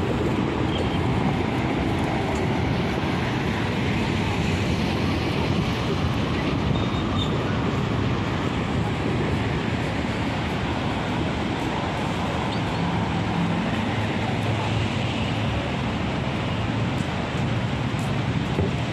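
Steady outdoor noise of wind buffeting the microphone, with street traffic underneath.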